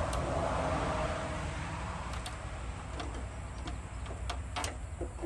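Wiring harness being worked through the firewall grommet hole: a rustling scrape of wires for the first second or so, then scattered light clicks and taps of plastic connectors, one louder click near the end.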